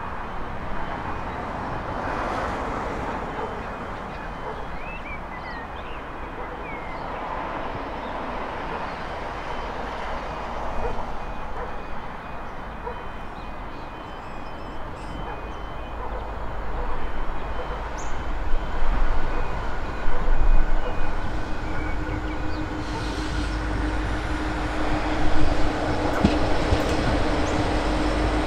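V/Line Sprinter diesel multiple unit approaching on the rails. It is faint at first and grows louder from about halfway as it comes close, with a steady engine drone coming in near the end.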